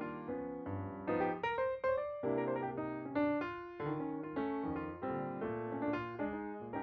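Background piano music: a melody of struck notes, each ringing and fading.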